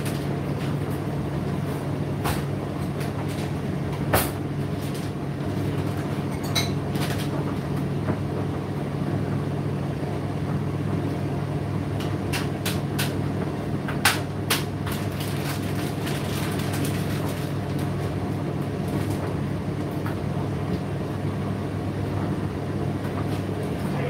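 Indesit IDC8T3 condenser tumble dryer running mid-cycle: a steady hum from the motor and turning drum, with a few sharp knocks about four seconds in and twice around fourteen seconds in.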